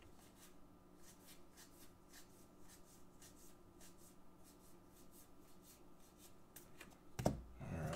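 Baseball trading cards sliding against each other as they are flipped one at a time through a freshly opened stack: faint, light strokes about two or three a second over a steady low hum. Near the end comes a soft knock, then a brief voice-like sound.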